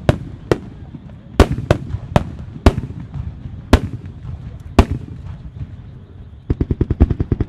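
Traditional Japanese aerial firework shells bursting: loud, sharp booms spaced half a second to a second apart, each with a short echoing tail. Near the end comes a quick rattle of about eight smaller cracks.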